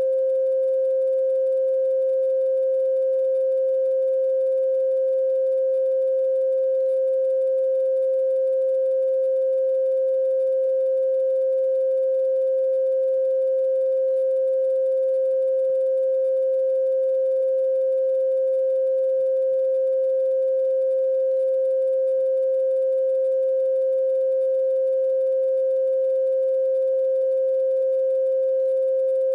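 A single steady pure tone, held at one unchanging pitch with no rise, fall or fade, and no music or voice over it.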